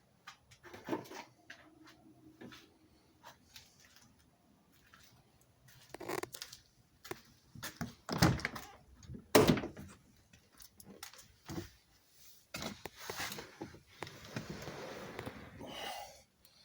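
Scattered knocks and clunks of handling, with two loud thumps about eight and nine and a half seconds in, then a hiss lasting about two seconds near the end.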